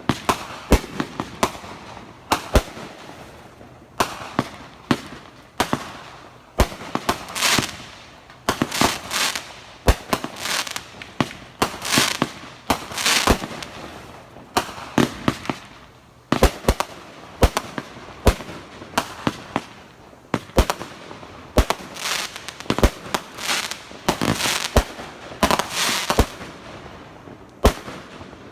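Fireworks going off in a continuous barrage: sharp bangs of bursting shells, often several a second in quick clusters, with a noisy wash ringing on after each burst.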